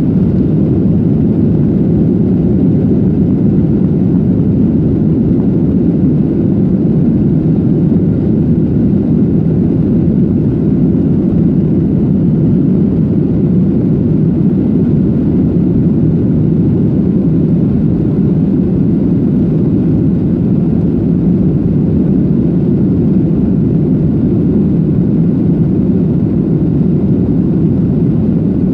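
Jet airliner engines heard from inside the cabin over the wing: a steady low rumble at an even level, with no spool-up.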